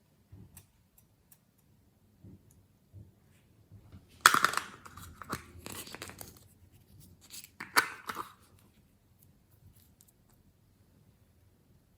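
Two short bursts of tearing and crinkling, one about four seconds in and one about eight seconds in, each trailing off, with faint clicks between them.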